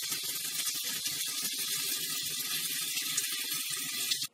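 Vegetables sizzling steadily in a hot oiled nonstick pan on medium-high heat as their moisture cooks off, with a spatula stirring and scraping through them. The sizzle stops abruptly near the end.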